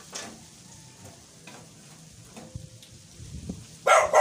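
Faint scraping with a few light taps, then a short, loud dog bark near the end that stops abruptly.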